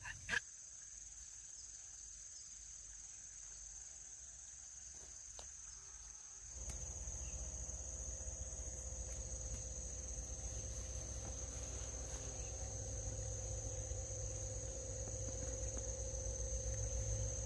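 Insects droning steadily at a high pitch. About six and a half seconds in, a low rumble and a faint steady hum come in underneath and stay.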